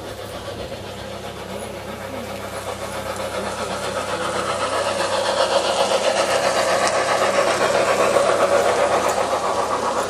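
Large-scale garden-railway model steam locomotive running past with its train, a steady mechanical running sound with a fast, even pulse. It grows louder as the engine comes close, is loudest a little past the middle, and eases slightly near the end.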